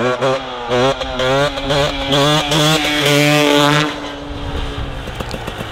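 Husqvarna 300 TPI two-stroke dirt bike engine revving hard in several rising pulls, as through the gears on a wheelie, then dying down about four seconds in.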